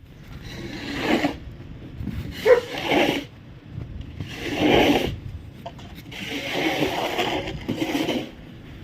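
Snow being scraped and crunched in four rough strokes, each about a second long, with short pauses between them.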